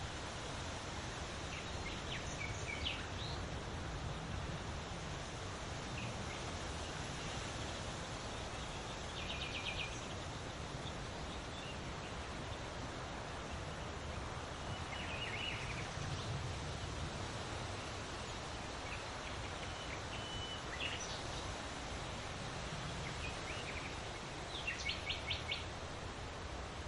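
Wind rustling through large leaves, a steady hiss, with birds chirping now and then and two short rapid trills, one mid-way and a louder one near the end.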